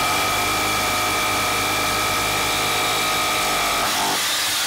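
Titan TTB653 SDS rotary hammer drill hammer-drilling a quarter-inch masonry bit into hard precast concrete lintel, with a steady motor whine. It cuts off a little under four seconds in as the trigger is released.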